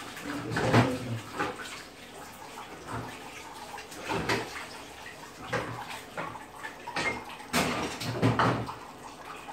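Thick groundnut soup boiling hard in a pot, its froth bubbling and popping in irregular bursts.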